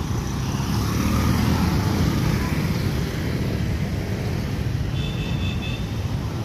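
Street traffic: motorcycles and motorcycle-sidecar tricycles running past, loudest a second or two in. A faint, brief high tone comes about five seconds in.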